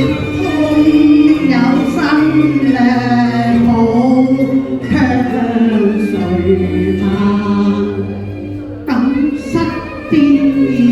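Cantonese opera (yueqiu) duet sung in the pinghou natural-voice style: long gliding sung notes over steady instrumental accompaniment, with a short break about nine seconds in.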